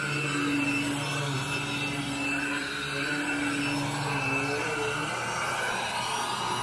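Orange upright vacuum cleaner running on carpet, a steady motor hum and rushing air; its pitch wavers a little about four to five seconds in as it is pushed over the carpet. This is pre-vacuuming: dry soil being pulled out of the carpet before it is cleaned.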